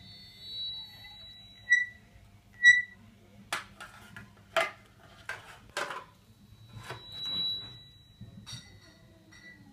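Experimental improvised music played on objects and pipes: thin, high whistle-like tones and short bright pips, then a string of sharp clattering strikes in the middle, and another long high tone near the end.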